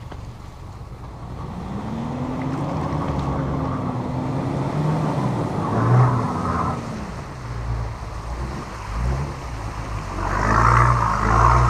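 Four-wheel drive's engine running and revving, its pitch rising about two seconds in and dropping back around seven seconds, growing louder toward the end.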